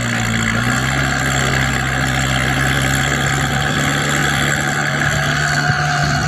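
A vehicle engine idling steadily, with a low, even drone that does not change in speed.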